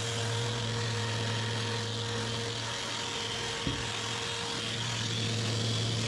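Electric parquet floor sander running with a steady hum and the hiss of abrasive on wood, with one light knock partway through.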